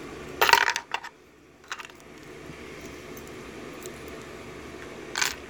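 Small metallic clinks and clicks of a brass Dorma lock cylinder and its parts being handled during disassembly: a quick cluster of ringing clinks about half a second in, a few light clicks, then one sharp click near the end.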